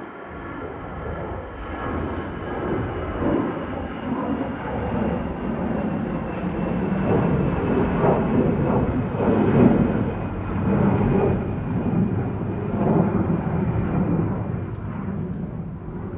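Airbus A319-111 jet engines at takeoff thrust: a loud roar that builds to a peak about halfway through and then slowly eases. A high fan whine slides gradually lower in pitch underneath it.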